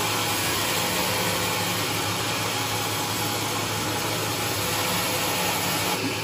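Large sawmill bandsaw running steadily as it saws a big trembesi hardwood slab: an even, unbroken whir with a low hum underneath.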